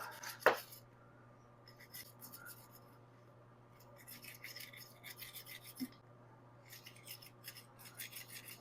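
A coat-hanger wire scraping back and forth inside a carburetor passage: faint, quick scratching strokes in short runs, after a single click about half a second in. The passage still holds grit.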